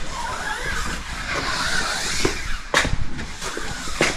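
Fingers rubbing and pressing vinyl wrap film down along the edge of a car hood, a steady hissing rub with two sharp clicks, one in the middle and one near the end.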